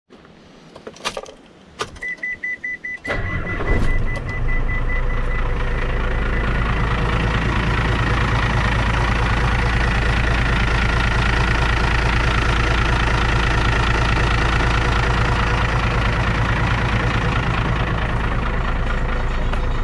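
A couple of clicks, then a 2007 Hino FG truck's turbo-diesel engine cranks for about a second and starts, about three seconds in, and settles into a steady idle. A warning buzzer beeps rapidly for a few seconds as it starts.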